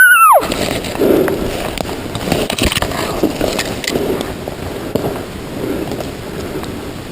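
The end of a loud elk bugle: a high whistle that drops sharply in pitch and cuts off within the first half second. After it comes irregular crackling and rustling of brush and twigs, as from someone moving through the undergrowth.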